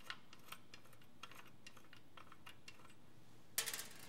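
Faint small metallic clicks of a nut and washer being turned off a threaded connector on an optical transmitter module by hand, with a short clatter of metal parts about three and a half seconds in.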